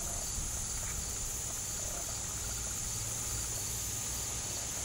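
Steady, high-pitched chorus of insects trilling without a break.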